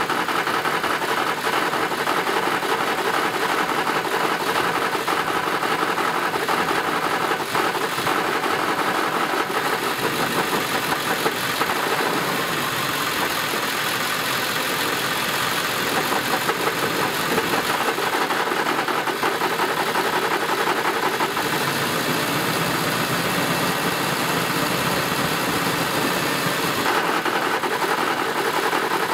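Ford 7.3-litre Powerstroke turbo-diesel V8 running at low rpm with a knocking, rattling noise, whose cause the owner does not know. The running is steady throughout.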